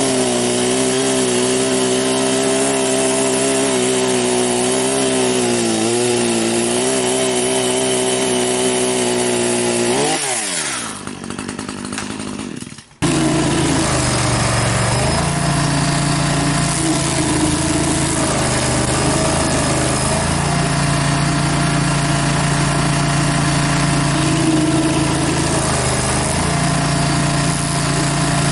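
Small gasoline engine of outdoor power equipment running hard at high speed, then winding down in pitch about ten seconds in. After a sudden break, an engine runs steadily at a lower, even pitch.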